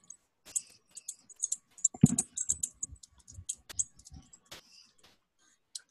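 Computer keyboard typing and clicking in an irregular run of short taps, with a heavier thud about two seconds in.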